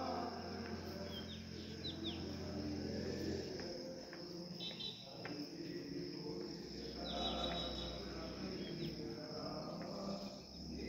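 Rural outdoor ambience: a steady, high-pitched drone of insects, with a few short falling chirps and faint distant voices underneath.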